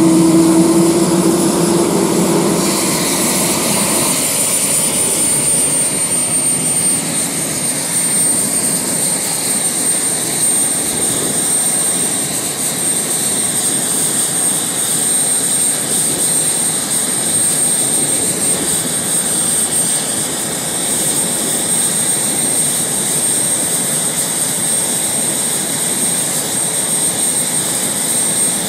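F/A-18 Hornet fighter jet engines running on the ground: a steady rushing noise with a high-pitched whine that climbs slightly a few seconds in and then holds. A lower hum dies away in the first few seconds.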